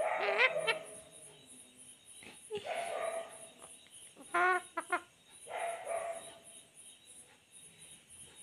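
Rose-ringed parakeet calling in four short bursts with rising, bending pitch; the loudest burst comes about four and a half seconds in.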